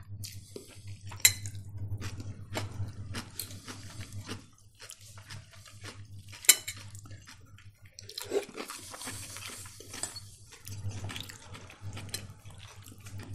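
Cutlery clinking against plates and bowls at a meal, scattered sharp clicks with two louder ones about a second in and about six and a half seconds in.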